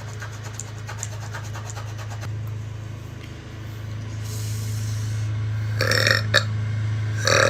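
A person burping, two short belches about six and seven and a half seconds in, over a steady low hum. The repeated burping is put down to acid reflux.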